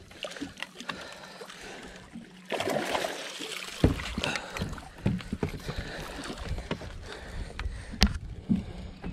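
Water splashing as a catfish is scooped up in a landing net beside a boat, loudest for about a second starting two and a half seconds in. Scattered knocks and clunks of gear against the boat, with a sharp knock just after the splashing and another near the end.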